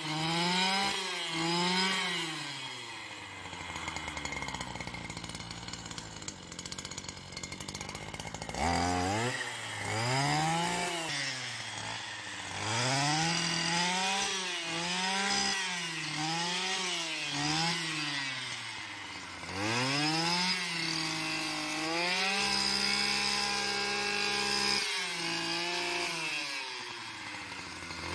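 Stihl petrol brush cutter cutting tall grass, its engine revving up and falling back again and again, about once a second, with each sweep of the cutter. A few seconds in, it drops to a steady idle for about five seconds before the revving starts again.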